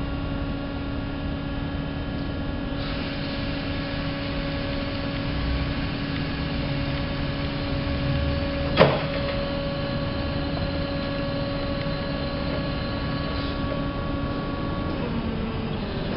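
Crown RC3020-30 electric stand-up forklift running as its raised mast and forks come down: a steady electric whine made of several held tones. One sharp clunk about nine seconds in, and the tones step down in pitch near the end.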